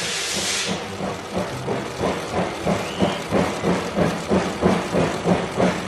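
Steam locomotive working hard under load. Its exhaust chuffs in an even rhythm of about three beats a second, after a short hiss of steam at the start.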